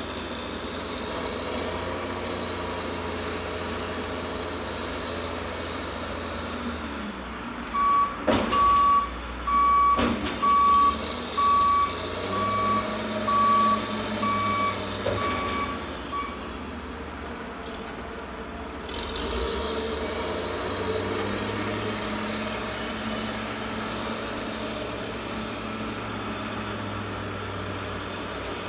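Heavy machinery at a mulching yard running steadily, with a vehicle's reversing alarm beeping about nine times at an even pace in the middle. Two sharp bangs come near the start of the beeping, and the engine note shifts a couple of times.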